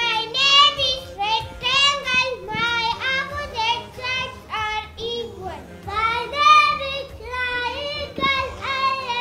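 A small group of young children singing a classroom rhyme about shapes.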